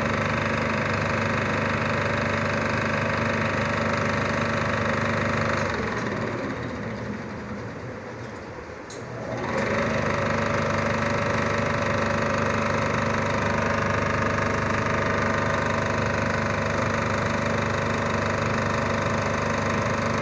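Rangertone 35 mm film projector running, its motor and film-transport mechanism making a steady mechanical whir and clatter. About six seconds in it fades and thins for a few seconds, then returns sharply to full level.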